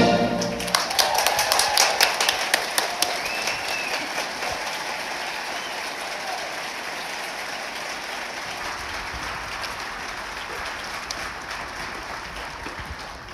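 Theatre audience applauding as the orchestral music ends; the clapping is strongest at first and slowly fades.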